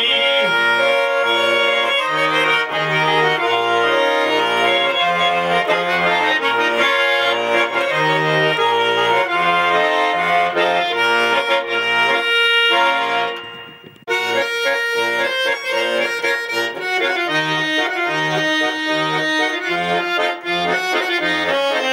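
Garmon (Russian button accordion) playing a folk tune, melody and chords over a pulse of bass notes. The playing dies away about thirteen seconds in, and a new tune starts a second later.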